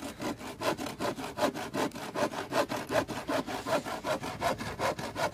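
Hand saw cutting through a wooden board with quick, even back-and-forth strokes.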